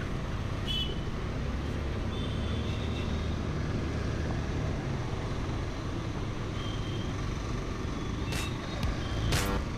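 Steady engine, wind and road noise of a two-wheeler riding through city traffic, with a few short high-pitched horn beeps from other vehicles and a couple of sharp knocks near the end.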